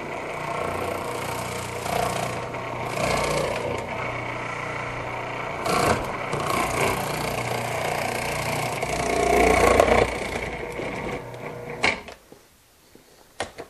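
Electric food processor running with its slicing disc as whole cucumbers are pushed down the feed tube and sliced, the motor's sound swelling each time a cucumber is fed against the blade. The motor stops near the end.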